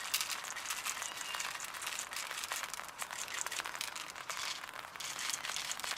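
Rain pattering on an umbrella held close over the camera: an even, dense crackle of tiny drop ticks.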